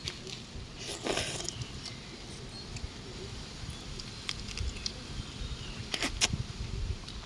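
Raw mantis shrimp being handled and eaten: scattered sharp clicks and crackles of shell being broken and chewed, with a longer crackle about a second in and two loud clicks near six seconds, over a low steady rumble.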